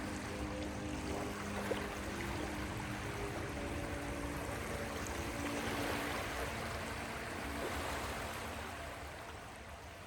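Steady rush of ocean waves, with soft held music notes that die away about halfway through. The whole sound begins fading out near the end.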